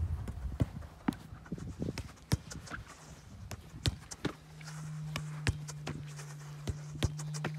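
Football being tapped and kicked between the feet on artificial turf, with quick footsteps: a string of sharp, irregular knocks. A steady low hum comes in a little after halfway.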